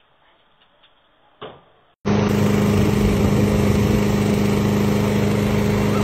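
Faint quiet hiss with one brief sound, then about two seconds in a steady engine comes in abruptly and runs at an unchanging pitch with a constant hum.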